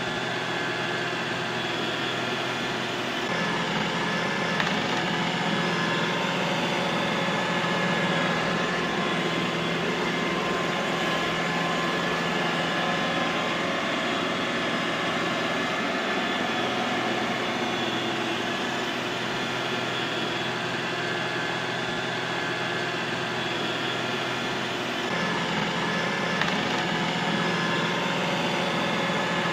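Robot vacuum cleaner running: a steady whirring hum with a few held tones in it. Its low hum changes slightly about three seconds in and again near the end.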